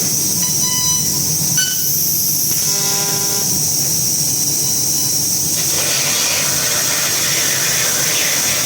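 CNC laser cutter cutting 22 mm plate: a loud, steady hiss of the cutting head and assist gas, with a few short whistling tones in the first few seconds.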